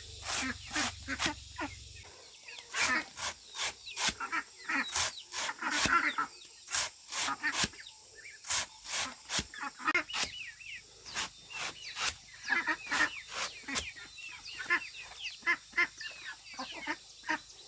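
Chickens clucking, mixed with a run of sharp, irregular knocks at about two to three a second.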